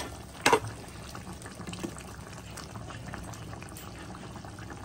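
Thick chicken curry gravy simmering and bubbling in an open kadai, with one sharp clack of a utensil about half a second in. Near the end a steel spoon is moved through the gravy.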